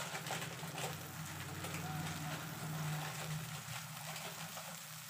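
Tamarind pulp with turmeric boiling on high flame in a steel kadai, a steady fizz of small crackles and bubbling from the oil in it, over a low steady hum.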